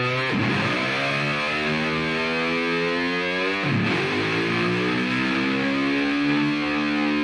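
Background music: distorted electric guitar with effects, chords sustained with pitch-sweeping changes about a third of a second in and again near four seconds.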